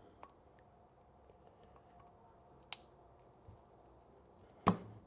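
Snap ring pliers clicking against the metal of a motorcycle brake master cylinder while feeling for the snap ring's ends in the bore. A few sharp separate clicks, the loudest near the end.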